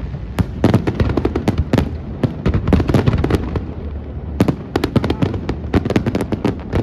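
Aerial fireworks display: a rapid, irregular string of sharp bangs and crackles over a steady low rumble, with a dense flurry of bangs about four and a half seconds in.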